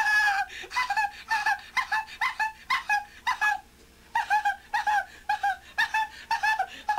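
A high-pitched voice giving short, repeated hoots, about three a second, in two runs with a short break around the middle.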